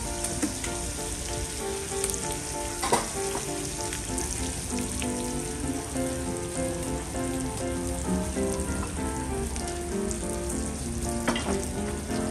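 Oil sizzling in a Thai wok on the fire: a steady frying hiss, with a few sharp clicks over it.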